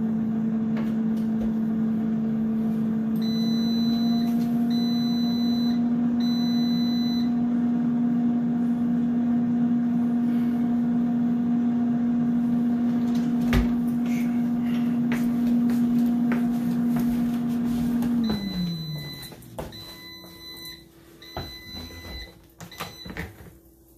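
Instant air fryer oven's fan running with a steady hum. It beeps three times as the cooking timer runs out and keeps blowing through its cool-down. About 18 seconds in the fan spins down, falling in pitch, and three more beeps signal the end of the cycle.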